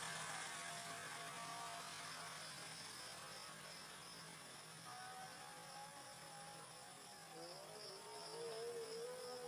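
Faint steady background hum with a high, thin buzz. About seven seconds in, a faint wavering tone rises in and then holds.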